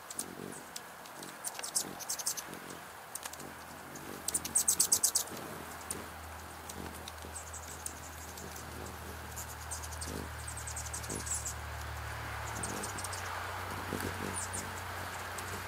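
Hummingbirds chattering in short, rapid, very high twittering bursts, the loudest about four to five seconds in. Raindrops tap irregularly on the feeder's plastic rain shield.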